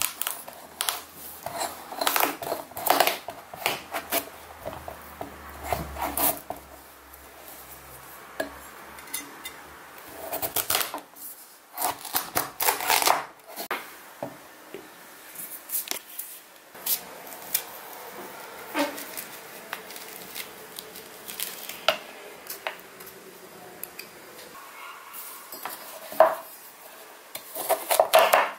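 Chef's knife cutting through a kabocha pumpkin and chopping it on a bamboo cutting board: irregular clusters of crunching cuts and sharp knocks of the blade against the board, with quieter handling in between.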